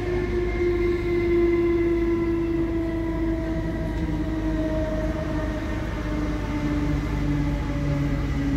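Inside the carriage of a moving electric passenger train: a steady rumble of the wheels running on the rails, with the traction motors' whine slowly falling in pitch.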